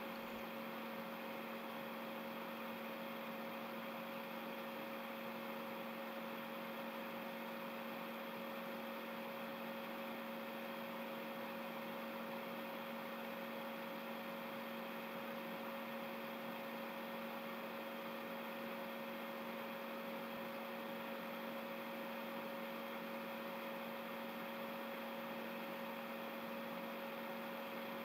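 Steady electrical hum, a low tone with a second higher tone above it, over faint hiss; the soldering itself makes no audible sound.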